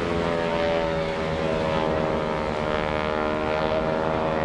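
North American SNJ/T-6 Texan's Pratt & Whitney R-1340 Wasp radial engine and propeller droning in flight as the plane passes, the pitch easing slightly lower.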